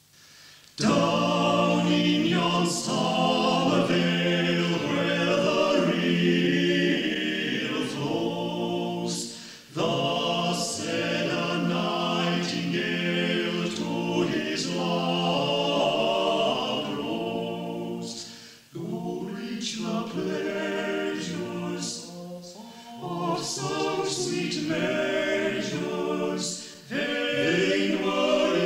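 Amateur choir singing unaccompanied, a cappella, heard from an early-1960s reel-to-reel tape recording. The singing comes in about a second in and runs in long phrases with short breaks between them.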